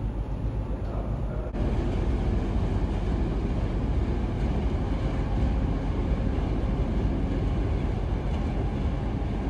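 Steady low rumble of the ferry Tachibana Maru's engines, heard from close by, with no distinct tones; it jumps a little louder at a cut about a second and a half in.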